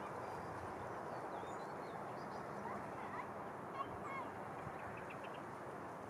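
Steady wash of river water, with several short bird calls scattered over it.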